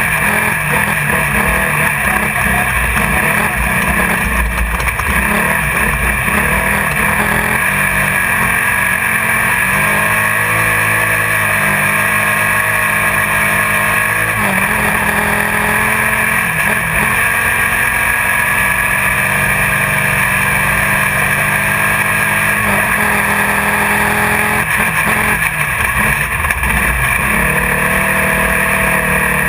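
Class 1600 off-road race car's air-cooled Volkswagen 1600 cc engine running hard under load, heard from inside the car, with constant rattling and chassis noise over it. The engine note shifts up and down in pitch several times, dipping briefly around the middle and again near the end.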